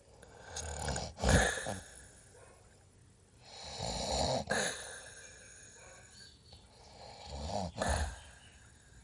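Snoring: three loud snores about three and a half seconds apart, each swelling up and then breaking off abruptly.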